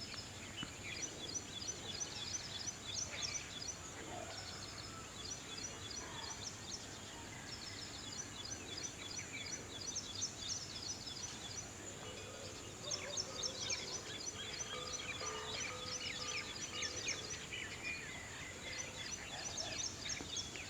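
Small birds twittering: quick clusters of short, high chirps repeating throughout, over a steady high-pitched whine and background outdoor noise.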